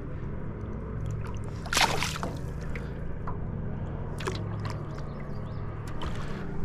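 Small boat on a lake: water lapping at the hull over a steady low hum, with a few sharp clicks, the loudest about two seconds in.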